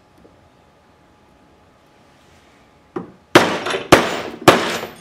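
Ball-peen hammer striking a cold chisel held on sheet metal over a bench vise, cutting a corner of a slot: one light tap about three seconds in, then three hard, ringing metallic blows about half a second apart.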